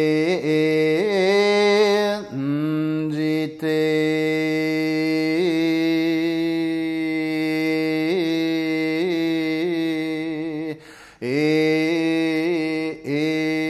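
A monk's solo voice chanting a hyōbyaku in Buzan-school Shingon shōmyō. Long, slowly held notes carry small wavering pitch ornaments (yuri), and the voice breaks off briefly for breath four times.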